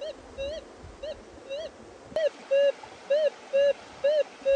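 Minelab Gold Monster 1000 metal detector giving a target signal: a run of short beeps, about two a second, each rising and falling in pitch, becoming much louder about two seconds in as the coil sweeps over the target.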